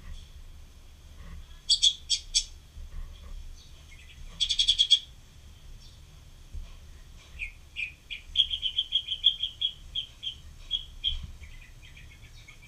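Felt-tip Sharpie marker squeaking against paper as lines are drawn: a few sharp squeaks, a longer scratchy squeal about four and a half seconds in, then a quick run of a dozen or so short squeaks from short repeated strokes.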